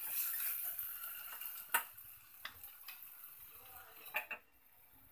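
A spoon stirring vegetables frying in ghee in a pot: a steady sizzling hiss with scattered clinks of the spoon on the pot, the loudest about 1.7 s and 4.2 s in. The stirring and sizzle stop short of the end.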